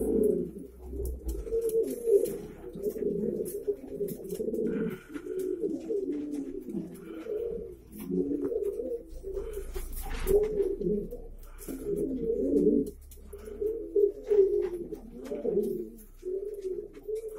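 Valenciano antiguo pigeons cooing almost without pause, in repeated low phrases broken by brief gaps, with scattered light clicks.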